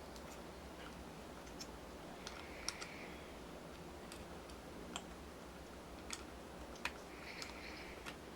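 Faint, scattered clicks and soft scraping as wire connectors are pushed onto a small 12-volt motorcycle turn-signal flasher unit by hand.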